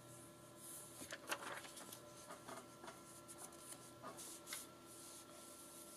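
Faint rustling and light taps of paper pieces being shuffled and laid on a journal page, loudest about a second in and again around four seconds.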